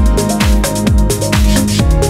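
Background electronic music with a steady deep beat, about two beats a second, under held chords.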